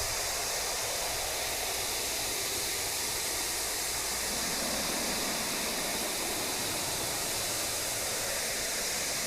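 Steady, even hissing noise with no changes, which starts and cuts off abruptly.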